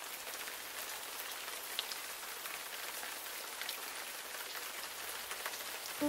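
Steady rain falling: an even hiss with scattered individual drops pattering through it.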